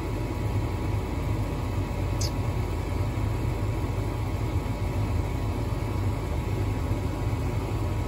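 Trane gas furnace's draft inducer motor running with a steady low hum during an ignition attempt that fails because the hot surface igniter gets no power. A faint light tick about two seconds in.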